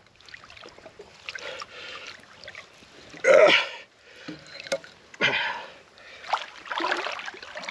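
Water sloshing and splashing as a heavy old anchor is hauled up out of a river's muddy bottom by someone wading in it, water streaming off it. Irregular bursts of splashing, the loudest about three seconds in, with a sharp knock just under five seconds in.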